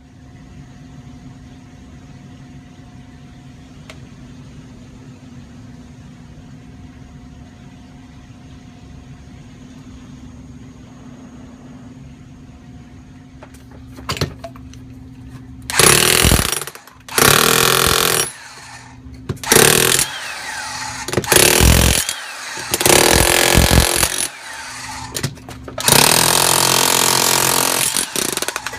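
Hammer drill boring into a concrete floor in a series of loud bursts of one to three seconds each, starting about halfway through, over a low steady hum.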